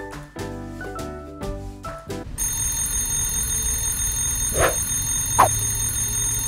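Background music: a melody of struck, mallet-like notes that gives way about two seconds in to steady high ringing tones, with two short bright notes in the middle.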